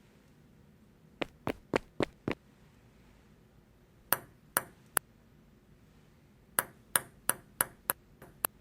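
A series of sharp clicks, each with a short ring, in three quick runs: five clicks, then three, then seven.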